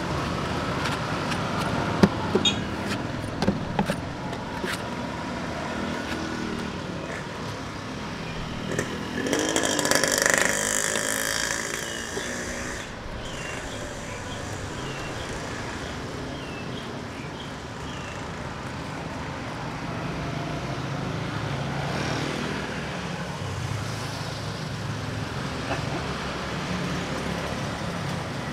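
Steady street traffic noise, with a vehicle passing close by and swelling loudest about nine to twelve seconds in. In the first few seconds, a few sharp clicks of a knife working a palmyra fruit against a wooden board.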